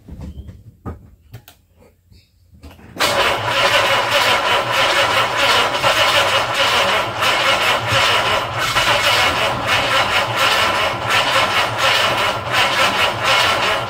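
Starter motor cranking the Jaguar XK twin-cam straight-six with fast, even pulses, starting about three seconds in and going on for over ten seconds, without the engine firing. The owner puts the no-start down to weak spark from its 50-year-old ignition leads.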